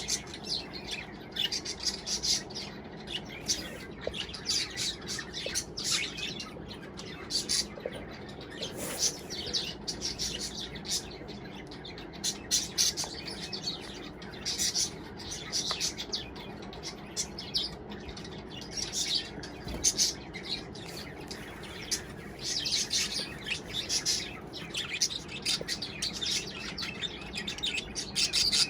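Budgerigars chirping and chattering in frequent short high calls, with a steady low hum behind them.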